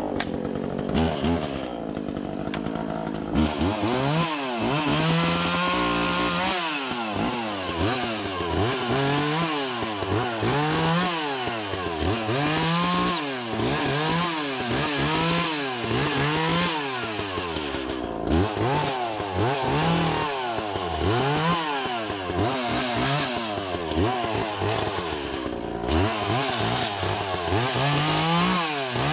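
Echo CS-400 two-stroke chainsaw running, its engine speed rising and falling over and over, about once every second and a half.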